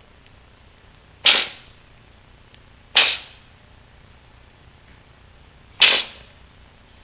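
Three short, sharp coughs, each starting suddenly and dying away within a fraction of a second, spaced about two and three seconds apart.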